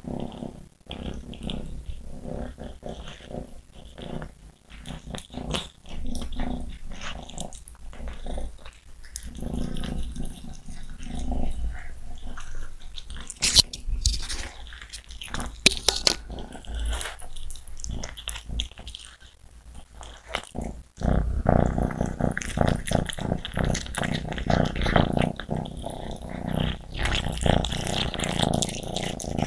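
Two kittens licking and chewing raw pork pieces stuck to a glass pane, with wet smacking and clicking, and low growling over the food. It grows louder and busier about three-quarters of the way through.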